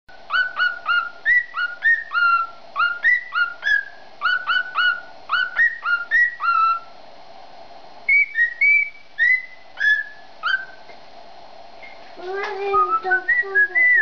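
Male cockatiel whistling its courtship song: quick runs of short, clear whistled notes, each bending in pitch, with a short break about halfway. Near the end a lower, warbling sound joins in.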